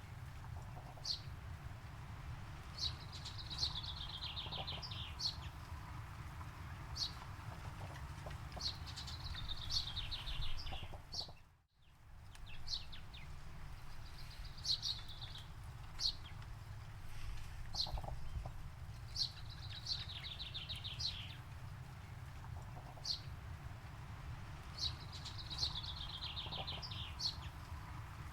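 Songbirds singing in a forest: a fast descending trill repeats every five or six seconds, with short high chirps between, over a steady low rumble. Near the middle the sound fades out almost to silence for a moment and comes back.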